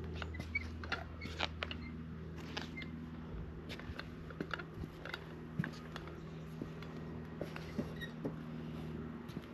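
A steady low machine hum runs under scattered small clicks, taps and knocks from timber framing and tools being handled.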